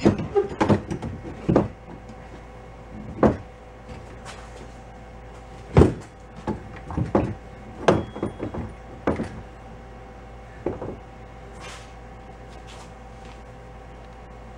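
Irregular clunks and knocks as a small engine with its belt pulleys is shifted and set down into a fiberglass engine bay. There are about a dozen, the loudest about six and eight seconds in, over a steady low hum.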